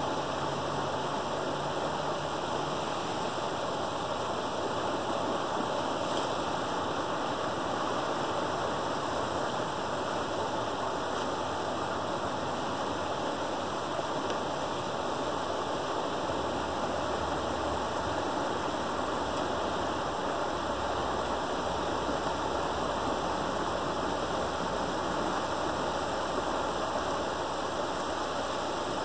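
Creek water rushing and splashing steadily as it pours through a breach in a beaver dam.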